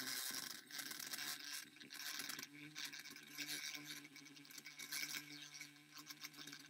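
Electric hand mixer whipping heavy cream: a steady motor hum under the wire beaters' constant rubbing and scraping in the mixing bowl.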